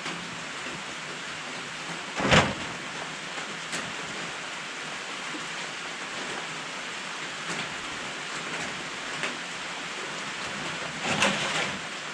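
Steady hiss of rain falling on a metal carport roof. A single loud thump about two seconds in, and a short cluster of knocks near the end.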